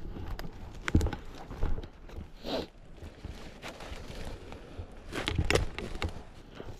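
Irregular rustling and crunching of footsteps through forest leaf litter, louder about a second in and again past the five-second mark.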